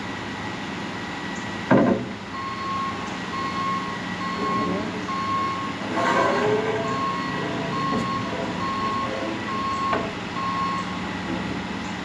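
A vehicle's reversing alarm beeps steadily, about one and a half beeps a second, over a running engine. A single loud knock comes just before the beeping starts.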